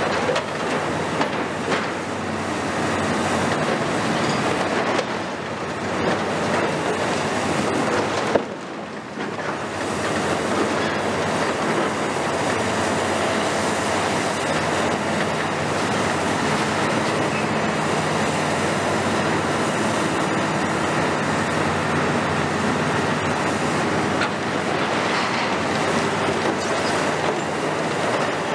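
A long-front demolition excavator's grab tears and crumples sheet cladding from a steel hall frame, with continuous metal clatter and scraping and debris falling, over the machine's diesel engine running. There is a sharp bang about eight seconds in, followed by a brief lull.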